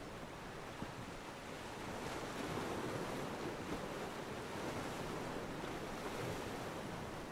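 Ocean waves washing against a pier: a steady wash of water that swells a little for a few seconds in the middle.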